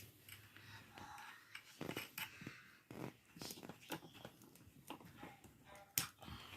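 Parts of a children's kick scooter being handled and fitted together by hand: scattered faint clicks and light knocks, with a sharper click near the end.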